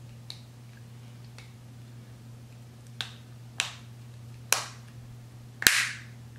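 Plastic casing of a C7 Corvette key fob clicking as its two halves are pressed back together: a faint click near the start, then four sharp snaps in the second half, each louder than the last.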